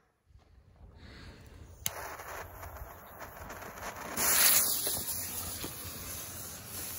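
Green fuse on a homemade paper-straw firework being lit with a lighter and burning, hissing as it throws sparks. A sharp click about two seconds in; the hiss swells about four seconds in as the fuse catches, then burns on steadily.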